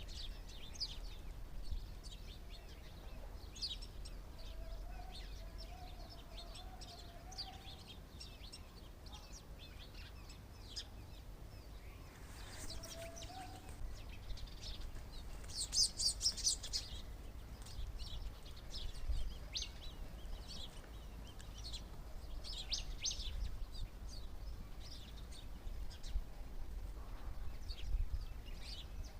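Small birds chirping in short, scattered high calls, with thicker flurries of chirps about halfway through and again near the end, over a low steady background rumble.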